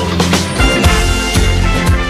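Instrumental music with a steady drum beat.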